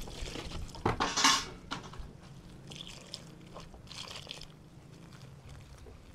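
Meat broth poured from an aluminium pot onto masa harina (nixtamalized corn flour) in a wooden bowl, mixed in by hand. The pour is loudest in the first two seconds, with fainter splashing and mixing sounds around three and four seconds before it dies away.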